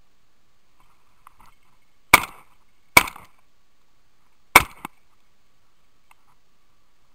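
Three shotgun shots, the second under a second after the first and the third about a second and a half later, each with a short echoing tail.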